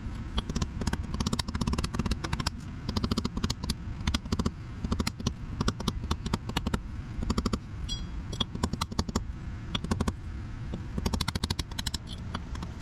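Rapid, uneven clicking and rattling of hand tools working on metal parts, over a low steady hum.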